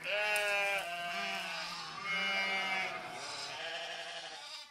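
Sheep and lambs bleating: about four long calls one after another, some overlapping.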